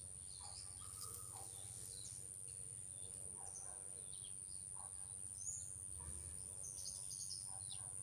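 Small birds chirping in short, scattered calls over a steady high-pitched whine.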